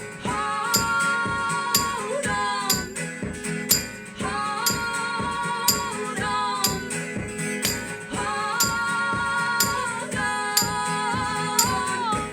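Live band music: held, wordless-sounding sung notes in phrases of about two seconds, repeating roughly every four seconds, over a steady beat with tambourine-like jingles.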